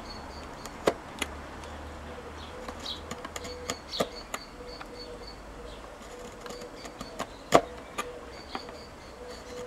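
A blade cutting a ramp into a green twig whistle, shaping the wind cutter, with a series of sharp irregular clicks as it bites into the wood. The loudest click is about three quarters of the way through. A faint steady buzz runs underneath.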